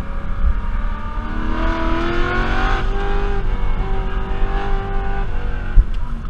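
BMW E92 M3's 4.0-litre V8 under load on track: the engine pulls up in revs, drops as it shifts about three seconds in, holds steady, then eases off near the end, over a heavy low rumble of road and wind noise. A single thump comes near the end.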